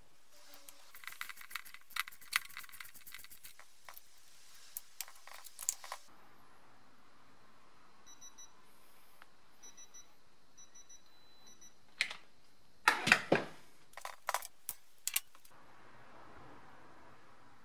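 Ratchet clicking and metal tools rattling as a nut is tightened through a digital torque wrench adapter, then a run of short high beeps from the adapter, which means the set torque is not yet reached and it has not gone to its continuous tone. Near the end come a few sharp metal clanks of tools being handled or set down, the loudest sounds here.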